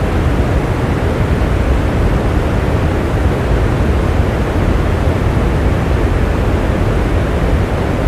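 Steady rain: an even, continuous hiss with a strong deep rumble, no single drops or thunder standing out.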